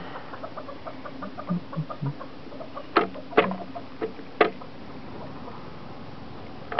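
Small clicks and taps from hands working a string onto the metal latch of a water rocket launcher, with three sharper clicks about halfway through.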